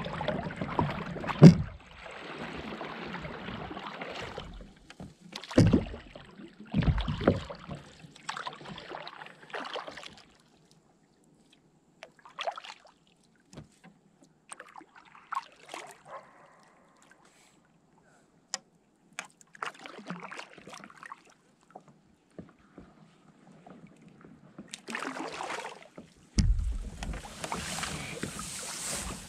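Paddle strokes splashing in the water beside a stand-up paddleboard, in irregular bursts with a few sharp knocks, quieter through the middle. Near the end the board pushes into dry reeds, the stems brushing and scraping loudly along it.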